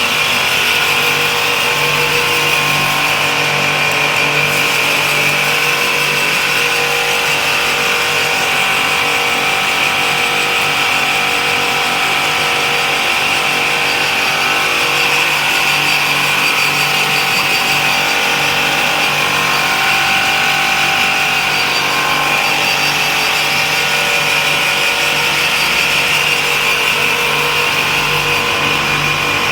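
Multi-function stone-cutting saw running steadily: an even motor whine with a hiss, unchanged throughout.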